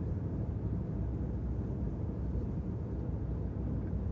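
Steady road and engine noise inside a car cabin at highway speed: an even low rumble with no separate events.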